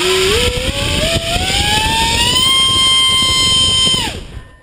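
Turnigy SK3 3659-1900kv inrunner brushless motor spinning a speed propeller on a six-cell pack. It runs up with a whine that climbs in steps to a steady high pitch about halfway in and holds at full throttle. About a second before the end it is cut and winds down quickly.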